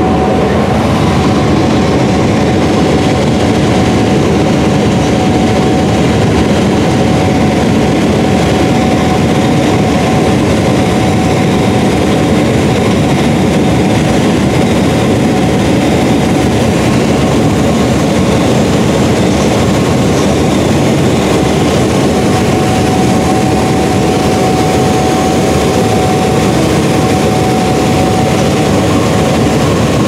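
Gleaner S68 combine harvesting and unloading corn on the go, heard from inside its cab: a loud, steady machinery drone with a thin steady whine.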